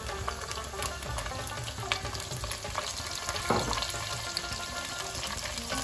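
Chopped onions dropping into hot cooking oil in a pot, sizzling and crackling as they start to fry.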